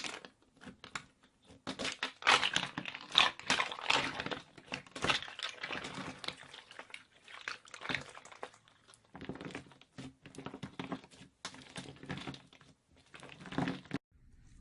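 Slime being squeezed and poked by hand: an irregular run of sticky crackles, clicks and small pops, densest a couple of seconds in, then sparser, stopping abruptly just before the end.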